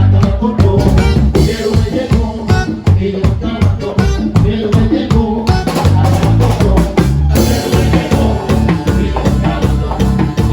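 Upbeat band music with a steady, driving drum beat; the high end grows brighter about seven seconds in.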